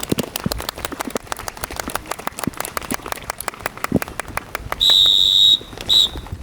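A long, loud whistle blast about five seconds in, followed by a short second blast, over scattered sharp clicks and a few low knocks.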